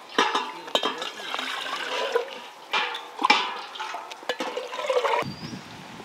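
Gram-flour (besan) batter being mixed by hand in a large steel bowl as water is added, with wet squelching and sloshing in irregular strokes. The sound stops abruptly about five seconds in.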